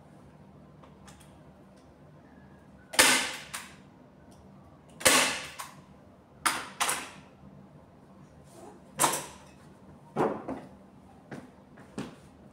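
Staple gun firing staples to fix fabric onto a bed base: about nine sharp shots at irregular intervals, starting about three seconds in, the first few the loudest.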